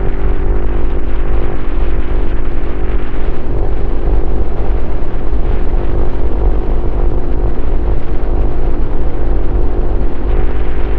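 Honda CRF150L's single-cylinder four-stroke engine running through a Norifumi Noctus T5 aftermarket exhaust while the bike is ridden, holding a mostly steady pitch, heard from a helmet-mounted camera with a low rumble underneath.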